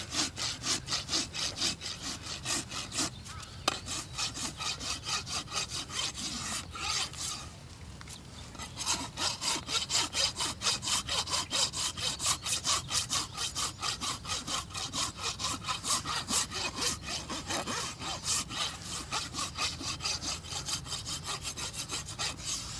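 Farrier's hoof rasp filing the hoof wall of a Belgian draft horse in quick, regular back-and-forth strokes, about two to three a second, with a short break about seven seconds in. It is dressing down the flared, separated outer hoof wall.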